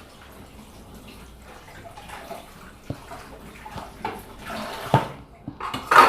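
School glue being squeezed and poured from its bottle into a bowl for slime, a wet squelching, pouring sound with small clicks and a sharp knock about five seconds in.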